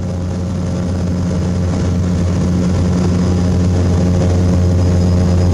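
Propeller aircraft engine running steadily, a low even hum that fades up and holds.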